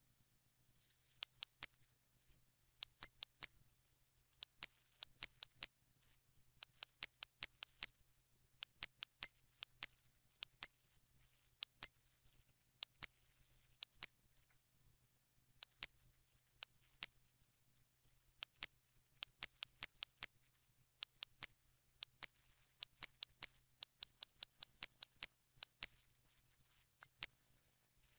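Computer mouse buttons clicking, in single clicks, double clicks and quick runs at irregular intervals with short pauses between. A faint, steady low hum runs underneath.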